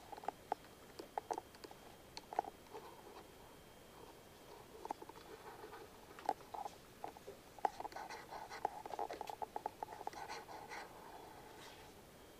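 Faint scratching and tapping of a colouring tool on paper, in short irregular strokes that come thicker about two-thirds of the way through.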